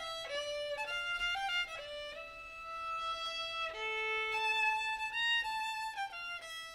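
Solo fiddle playing a slow Swedish folk melody in long held notes.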